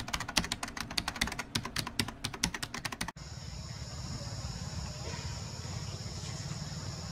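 Rapid computer-keyboard typing clicks that cut off abruptly about three seconds in. They give way to steady forest ambience: a continuous high insect drone over a low rumble.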